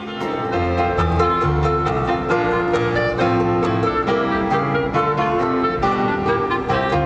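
Live small-band jazz: a ukulele plucking quick chords over a low bass line, with a clarinet playing held notes.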